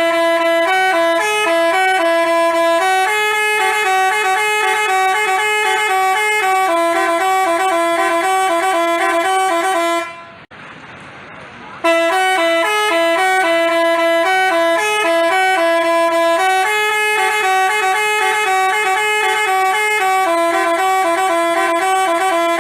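A telolet basuri bus horn playing a melody in stepped, buzzy notes. About ten seconds in, the tune breaks off for a couple of seconds, then starts over and plays the same sequence again.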